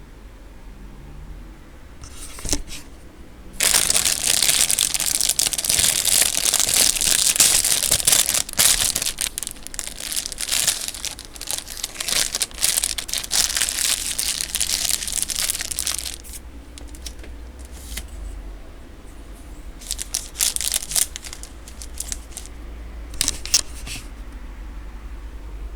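Plastic wrapper of a packaged pizza bun crinkling as it is handled and opened: a few crackles, then about twelve seconds of dense crinkling, then scattered crinkles.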